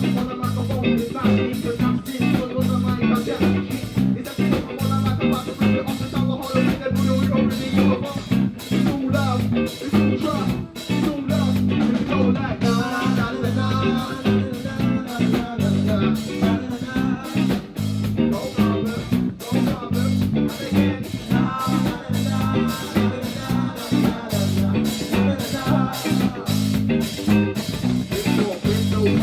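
Live band music: guitar and bass guitar over a steady drum beat.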